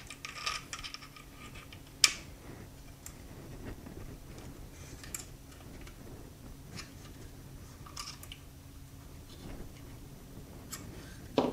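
Steel punch working the tight-fitting locking block out of a Glock 20 Gen4 frame: scattered small metallic clicks and scrapes, with a sharp click about two seconds in and another near the end.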